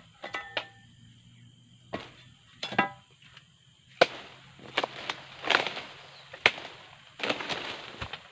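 Long-handled harvesting blade jabbed into the base of an oil palm's fronds and fruit-bunch stalk: about ten sharp chopping strikes, the first few with a brief metallic ring, the later ones longer, noisier crunches as the fibrous frond bases are cut.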